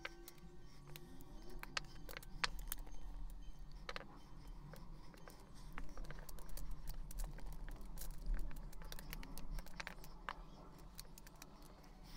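Backgammon checkers clicking against one another as they are set out and stacked by hand on the board: an irregular run of short clicks.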